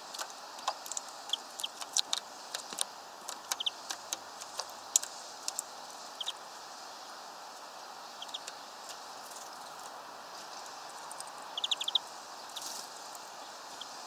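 A series of short, sharp ticks and clicks with brief high chirps from small birds at a peanut feeder, bunched in the first six seconds and again as a quick cluster just before twelve seconds, over a steady background hiss.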